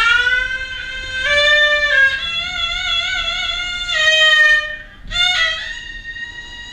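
Haegeum, the Korean two-string fiddle, playing sanjo in its slow jinyangjo movement: long bowed notes that slide up into pitch, with a wide wavering vibrato in the middle. About five seconds in the sound dips briefly before a new note is attacked with an upward slide.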